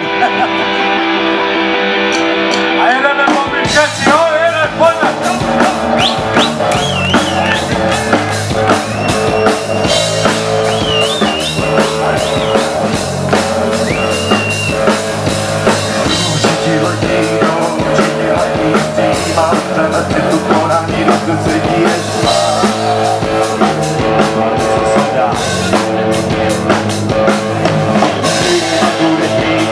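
Live rock band playing loudly. A guitar intro rings alone for the first few seconds, then the drums and the full band come in with a driving beat.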